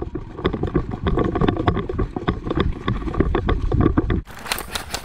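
Running footsteps and rattling gear as an airsoft player sprints across grass, with low rumble on the body-worn microphone. Over a second before the end a loud hissing rustle with fast clicks starts up and cuts off.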